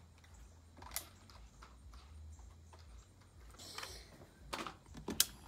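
Scattered small plastic clicks and taps from a toy RC car being handled in the hands, with a short hiss about two-thirds through and the sharpest clicks near the end.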